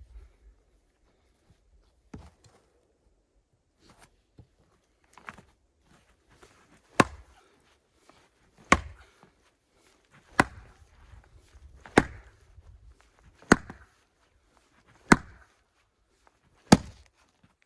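An axe chopping firewood: after a few light knocks, seven sharp, hard strikes land evenly, about one every second and a half.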